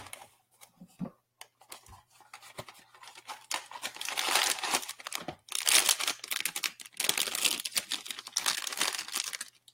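Blind-box toy packaging being opened: a few scattered taps and clicks, then from about three and a half seconds in, steady crinkling and tearing as the bag holding the vinyl figure is ripped open and pulled apart.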